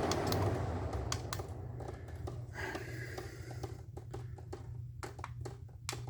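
Scattered light clicks and taps at an irregular pace, over the steady low hum of window air conditioners running in cool mode.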